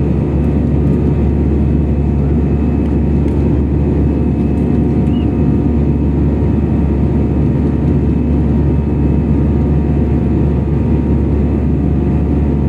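Steady roar of a jet airliner's engines and airflow heard inside the passenger cabin, an even low rumble with faint steady hums above it.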